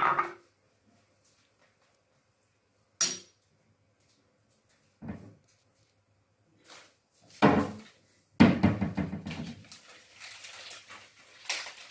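Kitchenware being handled on a stone countertop: a few separate knocks and clicks, then a longer, louder clatter about eight seconds in that trails off.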